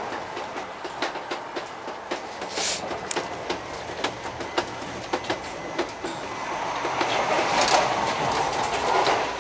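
Train running on the rails, its wheels and coach rattling with many small irregular clicks, growing louder about two-thirds of the way through.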